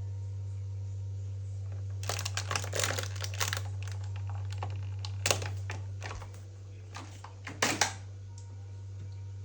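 Plastic packaging crinkling and rustling as a Maine Coon cat rummages in a refrigerator: a run of bursts about two seconds in, a sharp knock about halfway, and a louder burst near the end, over a steady low hum.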